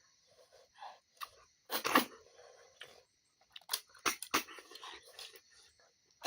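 Close-up eating sounds of snails being eaten: wet sucking and chewing, with several sharp clicks scattered through, the loudest about two seconds in.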